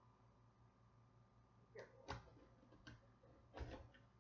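Near silence broken by a few short, soft knocks and rustles of hands handling packing inside a cardboard box, scattered through the second half, the loudest a little past three and a half seconds in.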